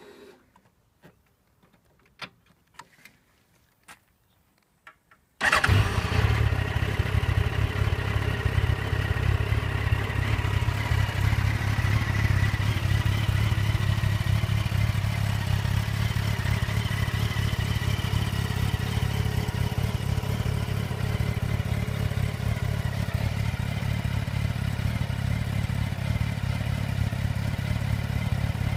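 Yamaha FZ1-S's 998 cc inline-four engine with its stock exhaust starting: a few faint clicks, then it catches suddenly about five seconds in and settles into a steady idle.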